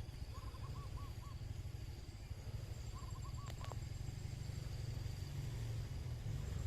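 A steady low motor rumble. Over it a bird calls a quick run of four short notes twice: just after the start and again about three seconds in.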